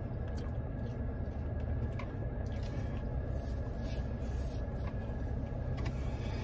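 Steady low rumble of a car idling with its cabin fan running, heard from inside the car, with soft clicks and rustles of eating over it.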